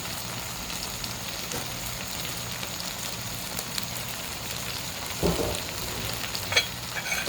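Saltfish frying with freshly added onion, peppers and tomatoes in a pan: a steady sizzle with small crackles. A dull knock comes about five seconds in, and a few light clicks near the end.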